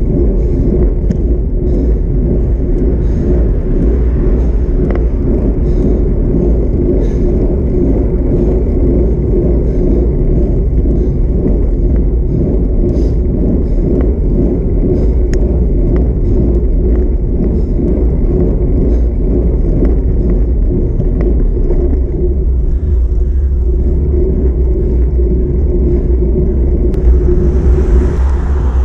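Steady low rumble of wind buffeting the microphone of a camera on a moving bicycle, mixed with tyre and road noise. A brief swell of hiss comes near the end.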